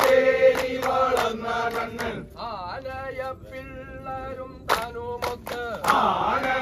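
Group of men singing a Poorakkali song in chorus over a steady held note, with a few sharp claps. It is loudest in the first two seconds.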